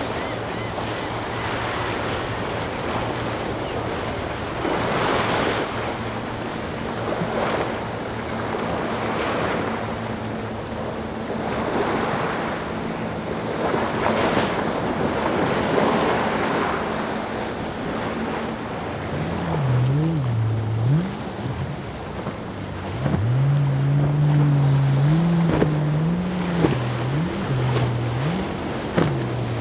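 Motorboat engines running under surf and wind noise that swells every couple of seconds. In the last third the engine pitch repeatedly swings up and down.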